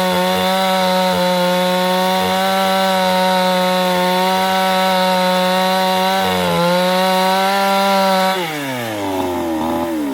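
Chainsaw cutting wood at full throttle with a steady high engine note. It dips briefly about six and a half seconds in, then winds down with a falling pitch near the end as the throttle is let off.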